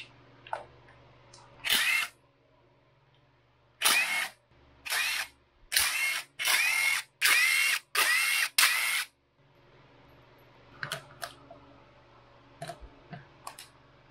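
Cordless Porter-Cable drill spinning out the magneto cover bolts in short bursts, each with a rising motor whine: one about two seconds in, then about seven quick bursts between about four and nine seconds. Light clicks of the loosened bolts and cover being handled follow near the end.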